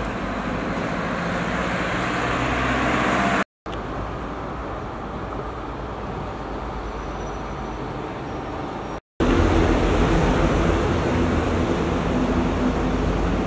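Street traffic noise: a vehicle swelling louder as it passes over the first few seconds, then steadier road noise, and a louder stretch with a steady engine hum near the end. The sound breaks off briefly twice.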